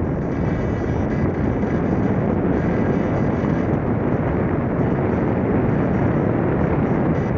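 Steady rush of airflow across the microphone of a mini camera riding on an F3K discus-launch glider in flight. There is no engine, since the glider is unpowered.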